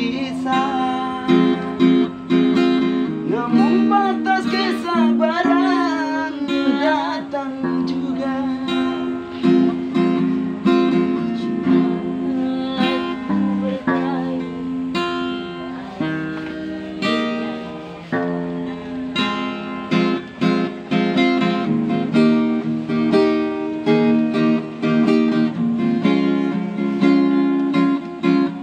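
Acoustic guitar strummed in steady chords, with a voice singing along, most clearly a few seconds in.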